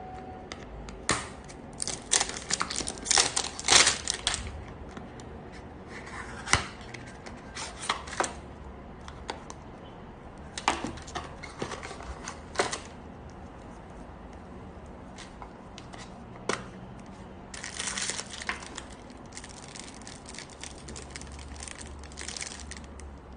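Irregular sharp clicks and light taps, bunched in quick clusters about two to four seconds in and again near eighteen seconds, with single clicks between.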